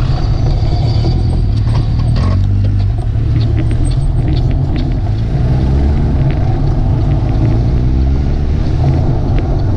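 Road traffic heard from a moving bicycle: a steady low rumble of riding and traffic noise, with a motor vehicle engine rising in pitch around the middle.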